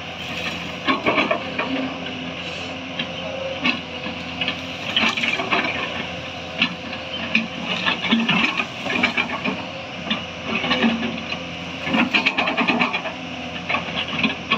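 Hyundai crawler excavator's diesel engine running steadily under load as its bucket digs into a brush-covered earth bank. Repeated cracks and snaps of brush and soil breaking come in clusters over the engine.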